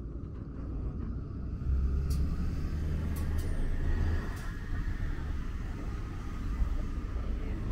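Street traffic: a motor vehicle's engine running close by with a steady low rumble that gets louder about two seconds in, with a few faint clicks.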